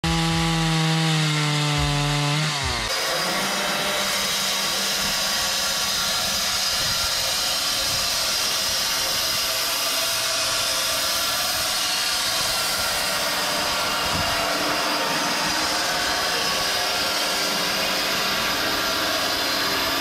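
A Stihl chainsaw engine running at a steady pitch, its note rising as it revs up about two and a half seconds in. This gives way to the steady, loud whine and rush of a band sawmill blade cutting through a log.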